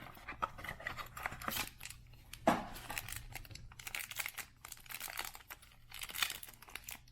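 A baseball card pack wrapper crinkling and tearing as it is opened, in irregular crackly strokes with one louder rip about two and a half seconds in.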